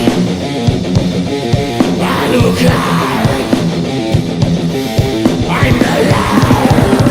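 Thrash/death metal music: distorted electric guitars over fast drumming, the drum hits getting denser near the end.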